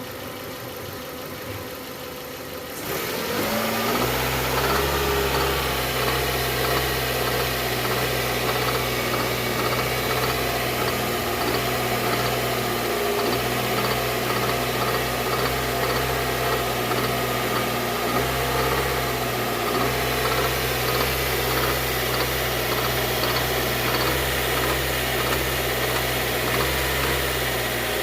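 Hyundai car engine running steadily at idle, getting much louder about three seconds in; this is the engine noise being shown as a fault.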